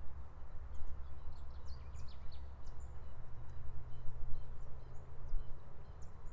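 The Bogotá river flowing as a steady rush under an uneven low rumble, with birds giving many short, high chirps above it.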